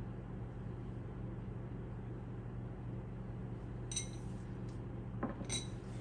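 Two light ringing clinks of a metal utensil against a mixing bowl, about four seconds in and again a second and a half later, over a steady low hum.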